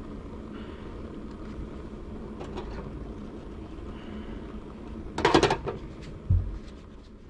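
Brass Trangia alcohol burner being set back down on a metal mess-tin lid: a short metallic clatter about five seconds in, then a dull thump, over a steady low background hum.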